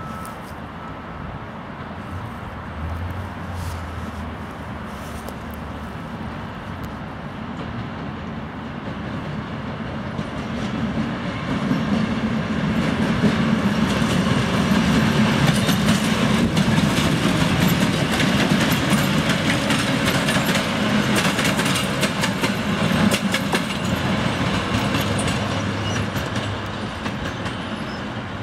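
A two-section 2TE116 diesel locomotive runs light past. Its diesel engines drone low and its wheels clack over rail joints and points. The sound builds about ten seconds in, is loudest as it passes, then fades as it moves away.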